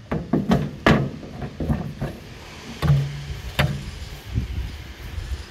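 A string of irregular knocks and clicks, several close together in the first second and a few more spread through the rest, from the sheet-metal panels of a Generac standby generator's enclosure being handled.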